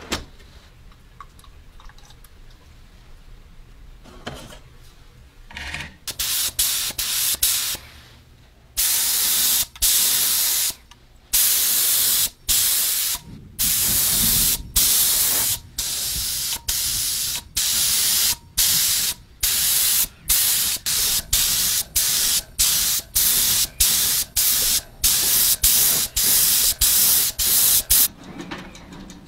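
Gravity-feed spray gun hissing as it sprays coating onto small gun parts. It comes in dozens of short bursts, each starting and stopping sharply as the trigger is pulled and released, a few of them held for a second or two. The spraying starts about six seconds in.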